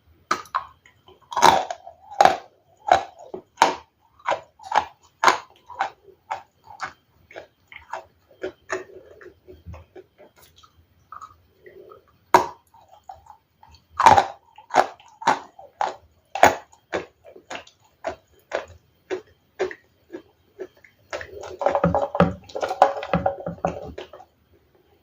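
Ice being bitten and chewed close to the microphone with loud crunches. There are two runs, each opening with a hard bite, then regular crunches about one to two a second that grow fainter as the ice breaks down. Near the end comes a denser, messier stretch of chewing.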